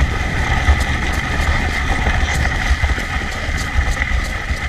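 Wind buffeting the microphone and the steady rush of fast movement along a trail behind a running sled dog, with a faint steady high hum.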